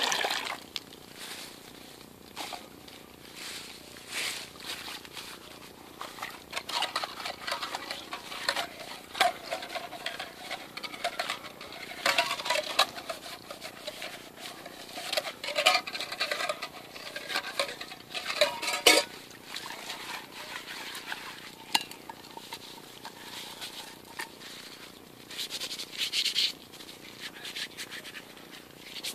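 A metal canteen cup and pot being scoured by hand with leaf litter and forest-floor grit as a natural abrasive: irregular scraping and rustling with scattered metal clinks. Near the end a plastic spork is rubbed clean the same way.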